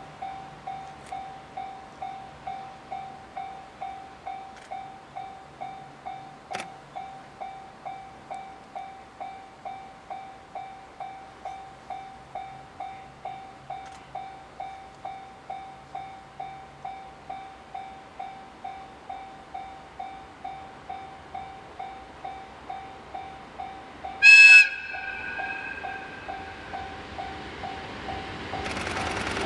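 Japanese level-crossing alarm dinging steadily at about two strikes a second. About 24 seconds in, the EF81 electric locomotive sounds one short, loud blast of its whistle, a fainter tone trailing for a second or two. Near the end the running noise of the approaching train rises.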